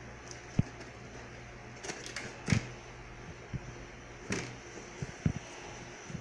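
A small foam-covered cardboard box being turned over and set down on a board by hand: a few short knocks, the loudest about two and a half seconds in, with brief scraping and rubbing between them.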